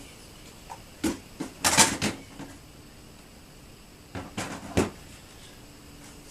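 Rummaging: a few short clunks and knocks of things being handled and moved, in a cluster about a second in and another about four seconds in.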